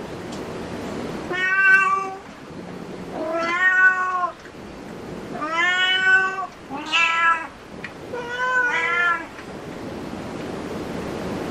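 Domestic cat meowing about six times. Each meow is under a second long and arches up then down in pitch, and the last few come close together.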